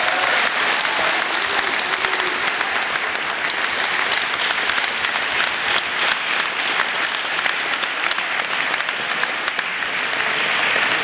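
An audience applauding: a steady clatter of many hands clapping.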